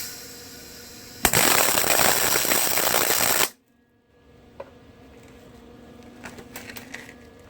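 Wire-feed (MIG) welder arc crackling for about two seconds while laying a tack weld, then cutting off abruptly.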